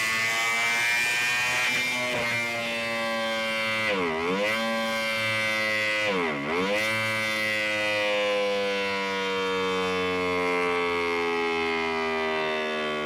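Kawasaki ZX-25R's 250 cc inline-four engine held at high revs. The pitch dips sharply and recovers twice, about four and six seconds in, then slowly falls over the last several seconds.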